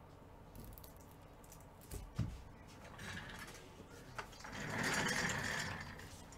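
Handling noise: scattered clicks and rustling, with a sharp thump about two seconds in and a louder swell of rustling near the end.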